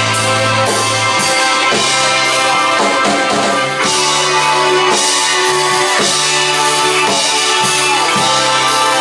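Instrumental passage of a rock song: electric guitar over a steady drum-kit beat with sustained chords.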